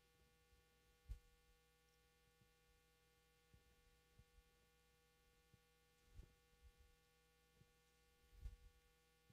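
Near silence: a faint steady electrical hum, with a few soft low thumps about a second in, around six seconds in and near the end.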